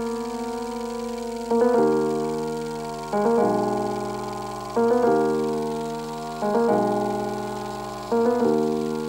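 Background piano music: slow chords struck about every second and a half, each left to ring and fade.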